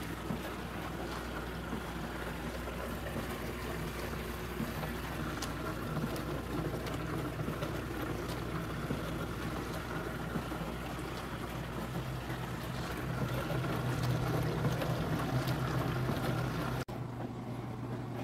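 Portable countertop dishwasher running a wash cycle: a steady motor hum under a wash of spraying water. Near the end the water noise drops away abruptly, leaving a lower hum.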